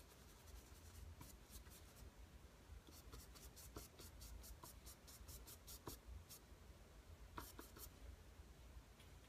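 Faint, quick scratching strokes of a paintbrush working oil paint, in runs of several strokes a second broken by short pauses.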